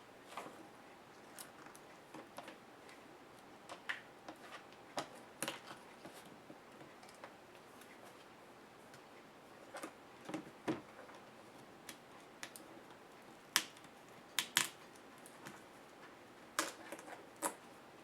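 Irregular light clicks and taps of laptop casing parts and screws being handled and pried apart by hand.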